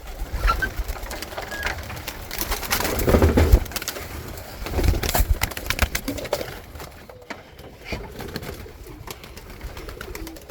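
Pigeons cooing in a loft, over clattering and knocking from handling, with the loudest bumps about 3 and 5 seconds in.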